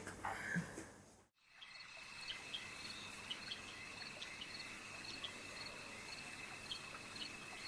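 Crickets chirping in night ambience: a steady high trill with short chirps repeating over it. It starts after a moment of silence about a second in.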